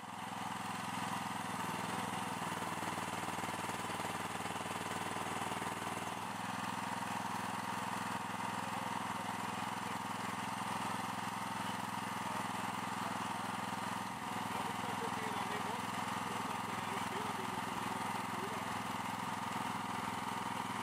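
Small petrol engine of a hydraulic power pack running steadily at constant speed, driving the CPT pusher's hydraulics as the cone rods are retracted.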